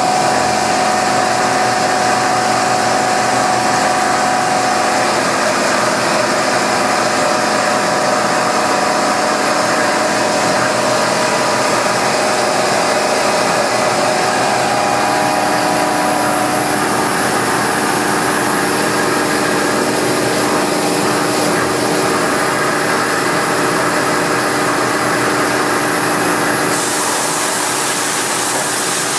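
Mori Seiki MV653 CNC vertical machining center milling under flood coolant: a steady rush of coolant spraying over the workpiece, with a few steady tones from the cut and the machine. The tones shift slightly in pitch a couple of times, and the high hiss thins near the end.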